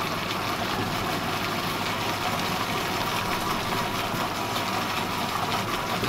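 Monsieur Cuisine Connect food processor's motor running steadily at speed 4, its blade mixing a thick camembert and sour cream dip in the bowl.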